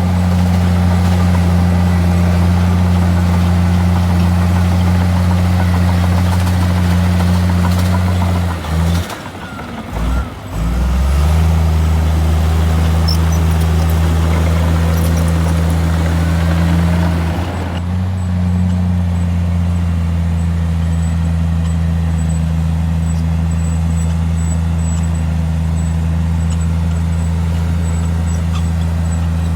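Diesel engine of heavy earthmoving machinery running at a steady pitch, with a brief drop about nine to eleven seconds in. The higher-pitched noise over it eases after about eighteen seconds.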